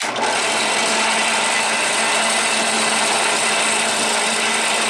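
Central Machinery 5-speed 8-inch benchtop drill press switched on and running steadily on its high-speed pulley. It sounds gritty, a sign of its rough mechanism.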